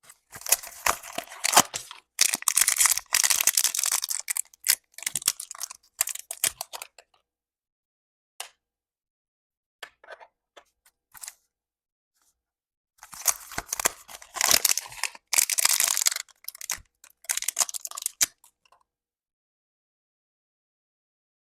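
Blind box pin packaging being torn open and crinkled by hand, in two rustling bouts with a few small clicks between them.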